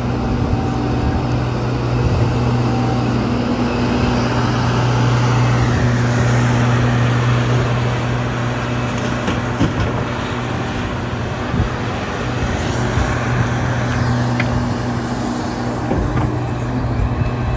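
Liebherr R 976 crawler excavator's diesel engine running steadily under digging and loading load, with a deep hum whose note swells and rises about five seconds in. A few short knocks of rock and bucket break through later on.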